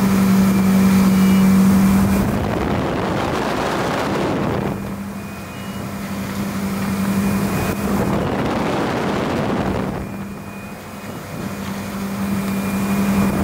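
Ski tow boat's engine running steadily at pulling speed, a constant low hum, under the rush of water and wind that swells and fades a few times as the skier cuts back and forth.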